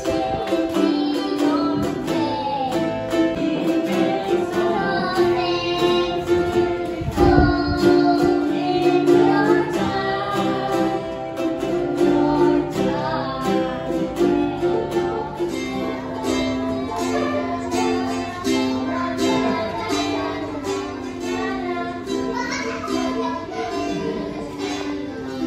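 A child singing into a microphone to strummed ukulele and acoustic guitar accompaniment.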